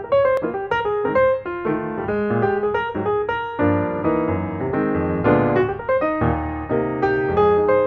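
Background piano music: a melody of quick notes over sustained chords.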